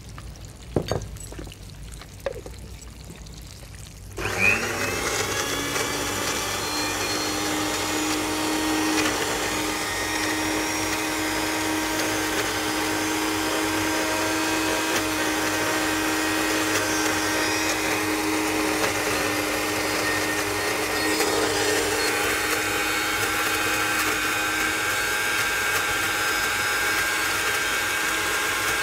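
A couple of light knocks, then about four seconds in an electric blender switches on. Its motor spins quickly up to speed and runs steadily, puréeing ripe mango with the sauce ingredients.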